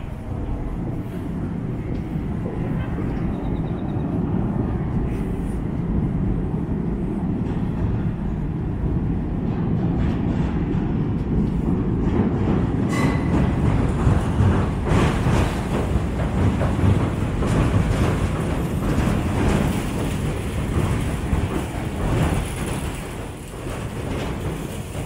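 Tobu line train crossing the steel railway bridge over the Sumida River beside the walkway: a loud, steady low rumble that builds, with wheels clacking over the rails from about ten seconds in.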